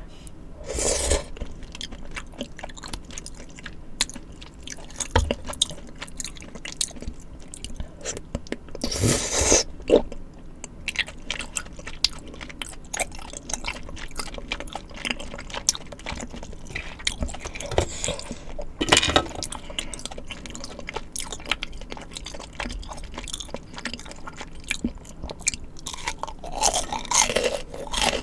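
Close-miked mouth sounds of eating tteokbokki and crunchy fried snacks: steady chewing with many small crackles and clicks. A few louder bites come roughly every ten seconds.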